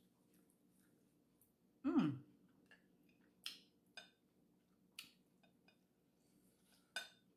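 Eating sounds from a person at a seafood boil: a short hum with falling pitch about two seconds in, then scattered wet lip smacks and mouth clicks while chewing.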